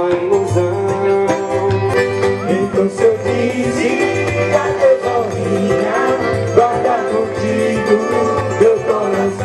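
Live band music in an instrumental passage: a gliding string melody over a steady bass line and light percussion.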